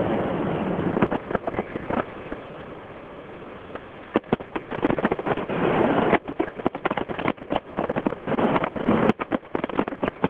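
Aerial fireworks bursting and crackling. A dense volley of bursts fills the first couple of seconds, it eases briefly, then rapid sharp cracks and bangs pile up from about four seconds in.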